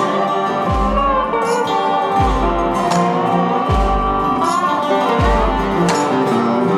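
Background instrumental music on plucked strings, with a deep beat about every second and a half.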